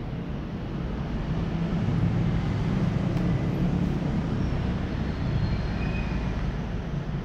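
A low, steady rumble that grows louder about two seconds in and eases off near the end.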